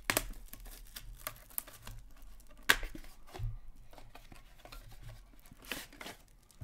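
Hands handling trading cards and their cardboard and plastic packaging: scattered rustles, light taps and clicks, the sharpest click about two and a half seconds in.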